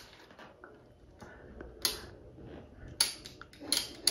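A handheld camera being handled and fired: a few sharp clicks and short mechanical clatters, one about two seconds in and several close together near the end.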